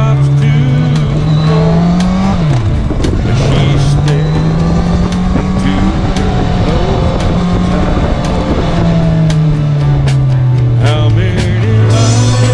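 An engine revving up and down: its pitch climbs, drops sharply about two seconds in, climbs again and holds, then falls away near the end. Music with a beat plays over it.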